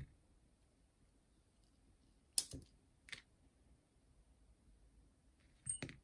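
Sharp clicks and taps of small boombox parts being handled: a loud click about two and a half seconds in, a softer one just after, and a quick pair near the end.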